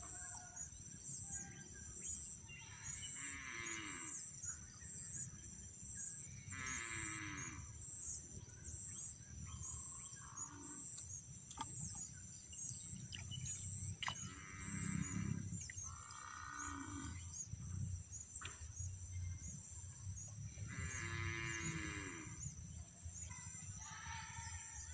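A steady high insect chorus with a fast pulsing trill. Over it, an animal's drawn-out calls, each about a second long, repeat every three to four seconds.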